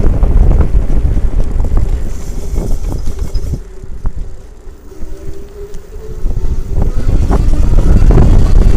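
Wind buffeting the microphone while riding a Lectric e-bike. The wind eases in the middle, and a faint whine from the e-bike motor comes through, drifting slightly in pitch. This is the screeching noise the motor is making.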